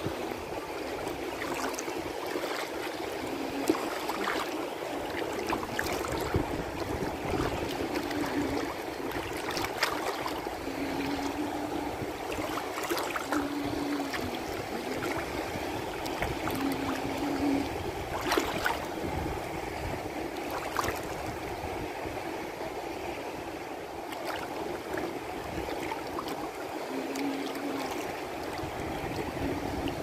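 Small waves of the shallow Sea of Azov sloshing and lapping: a steady watery rush with scattered short, sharper splashes.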